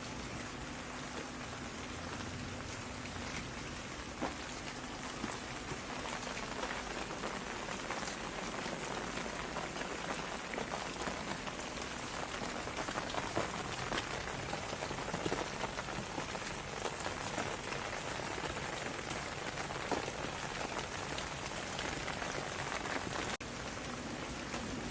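Steady rain falling, with many individual drops striking close by as sharp ticks over an even hiss.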